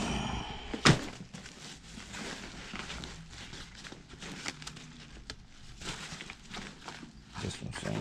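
Backpacks being handled and shifted: rustling of fabric and plastic with many small clicks and knocks, and one sharp thump about a second in.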